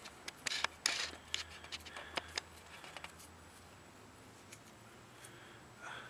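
Close handling noise of dirty hands working metal rings: a quick run of small sharp clicks and scrapes in the first few seconds, then quieter fumbling, with one brief louder rustle near the end.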